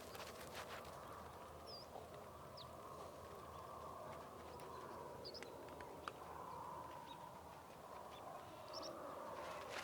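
Quiet farm-morning ambience: a soft, steady rural background with a few brief bird chirps scattered through and a single sharp tick about six seconds in.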